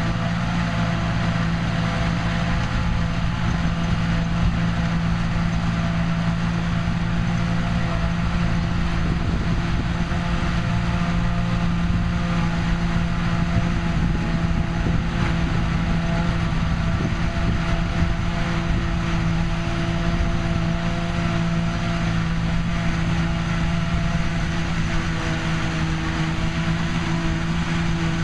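New Holland TM155 tractor working under load, driving a trailed JF forage harvester as it picks up and chops a grass swath, with the tractor and silage trailer running alongside. A steady engine and machine drone with an even low hum that holds unchanged throughout.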